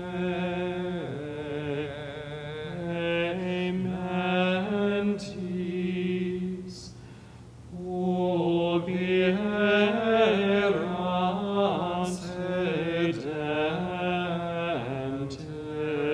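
A single voice singing Latin plainchant, with long held notes and a pause for breath about seven seconds in.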